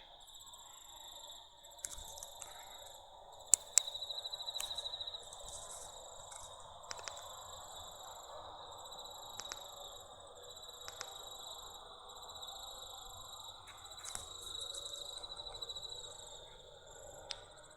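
Crickets trilling steadily through the night, with a few sharp clicks, the loudest a close pair about three and a half seconds in.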